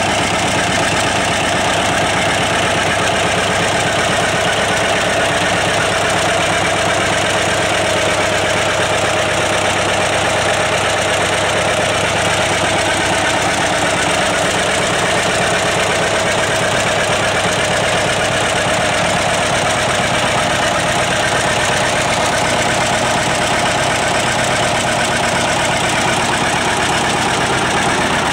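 John Deere R tractor engine running steadily at a constant speed, on its first run after a full overhaul.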